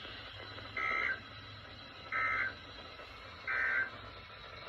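Emergency Alert System end-of-message (EOM) data bursts: three short bursts of digital two-tone warble, each under half a second and about a second and a half apart, signalling that the alert message is over.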